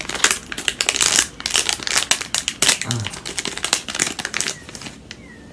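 A shiny foil blind-bag packet being crinkled and torn open by hand: a dense run of rapid crackles that stops about four and a half seconds in.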